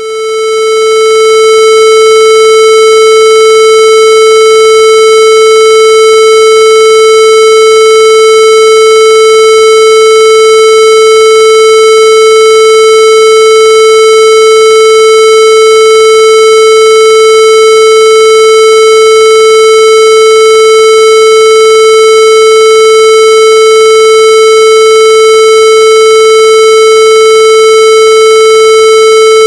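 A loud, steady electronic tone held at one unchanging pitch with many overtones, swelling to full volume over the first couple of seconds.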